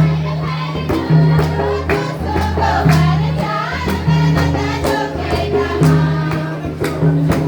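Music for an Adivasi dance: voices singing a folk-style song over a deep, held bass line and a steady drum beat at about two strokes a second.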